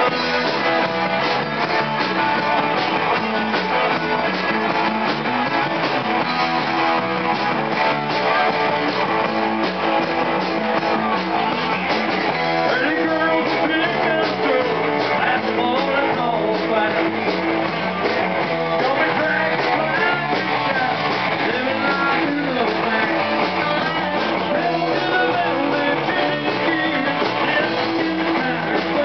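Live rock band playing: electric guitars, bass guitar and drums, with a lead melody bending in pitch over the band from about twelve seconds in.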